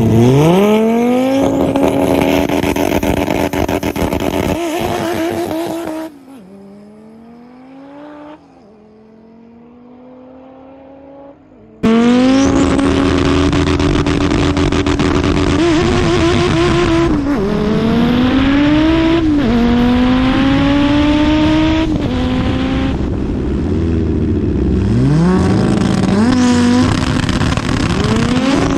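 Audi drag car's engine accelerating hard under full throttle, its pitch climbing and dropping back again and again as it shifts up through the gears. The sound falls much fainter for several seconds a quarter of the way in, then returns at full strength.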